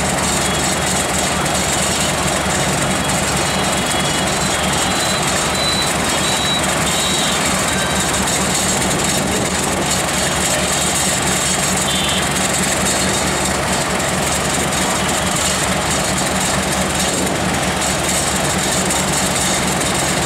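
Diesel locomotive engine running with a steady low drone as it hauls a passenger train slowly out of a station.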